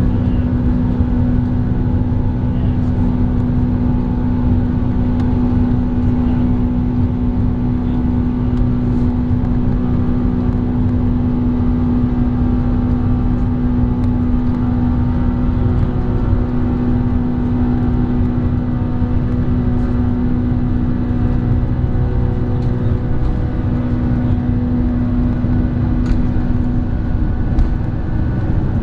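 Cabin noise aboard a Boeing 747-400 airliner: the four jet engines and airflow running as a loud, steady rush with a steady low hum held throughout.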